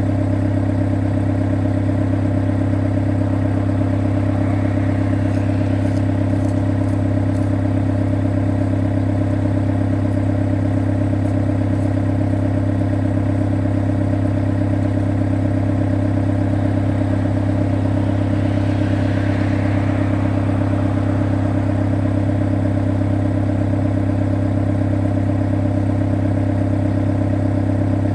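Excavator's diesel engine running steadily at an even pitch, with faint scraping about five seconds and again about nineteen seconds in.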